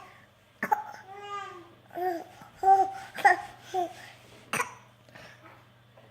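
A small child putting on fake coughs: two short, sharp coughs, one about half a second in and one about four and a half seconds in, with high-pitched babbling and cooing sounds between them.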